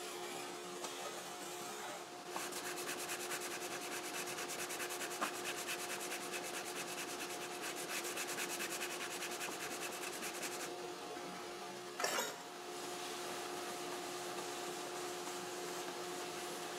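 80-grit sandpaper on a short scrub block rubbed in rapid back-and-forth strokes along a guitar fingerboard, from about two seconds in to about eleven seconds in. It is spot-dressing a high spot between the first and fourth frets to level the neck. A short knock comes about twelve seconds in, over a steady hum.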